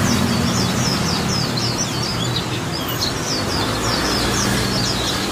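Caged white-eye singing a fast, unbroken run of short high twittering notes, over a low hum and background noise. The bird is in the over-excited state that keepers call 'too much fire'.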